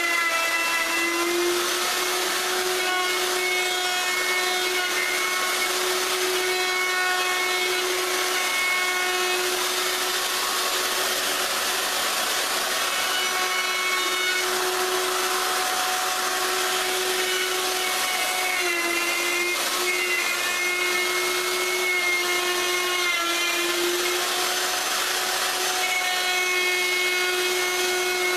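Electric router running steadily while cutting the solid maple edge strips flush with the table top, its high motor whine dipping briefly in pitch a few times as the bit takes more wood.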